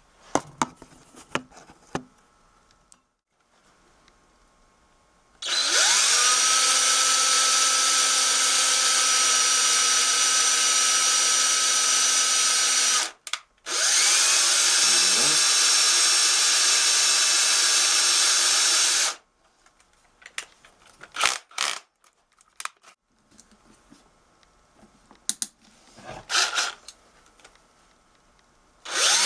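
Electric drill spinning a Q-tip loaded with metal polish to polish a carburetor float valve seat: two runs of several seconds each, each spinning up to a steady whine, with a short pause between. Light clicks and taps of handling before and after the runs.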